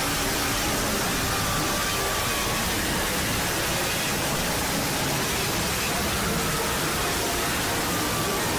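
Steady, loud static noise spread evenly across all pitches, with a few faint short tones buried in it.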